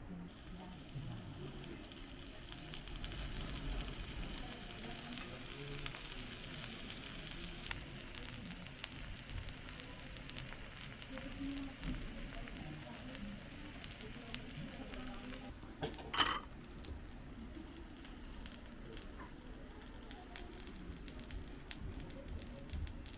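Food sizzling and crackling as it grills over the charcoal of an irori hearth, a steady fine hiss full of small pops. About sixteen seconds in, a brief ringing clink stands out above it.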